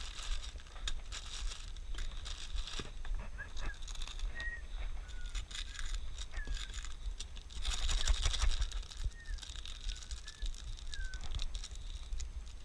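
Plastic packaging crinkling and tearing as an instant noodle packet and its seasoning sachets are opened by hand, loudest about eight seconds in. A bird gives short, scattered chirps throughout.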